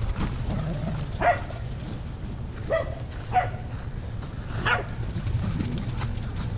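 A dog barking: four short, sharp barks spread over a few seconds, over a steady low rumble.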